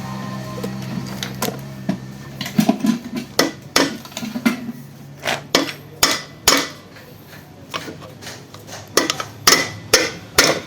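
Hammer tapping on a Zacchi air compressor's piston assembly to seat it in its bearing during reassembly: a series of sharp, irregular knocks, some in quick pairs.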